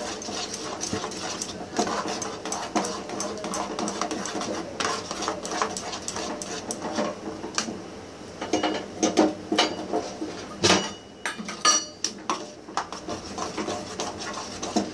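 Metal ladle scraping and knocking irregularly against a steel pot as thick ragi and jaggery batter is stirred on the stove.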